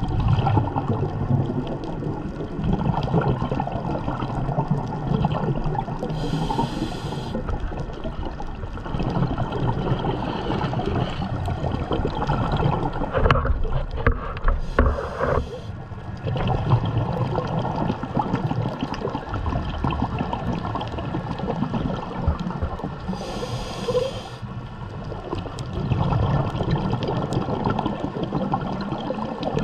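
Scuba diver breathing through a regulator underwater: long stretches of exhaled bubbles gurgling out, broken twice by a short hiss of inhalation through the regulator.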